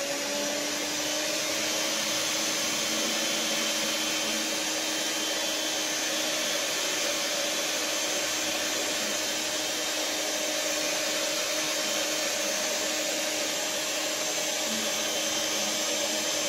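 Electric stand mixer running steadily at one speed, a constant motor whine and hum, as it mixes a wet yeast dough for bagels.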